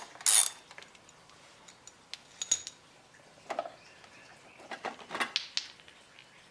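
Sparse light clicks and knocks of hands handling a lawn mower's plastic drive wheel, with a louder clatter just after the start.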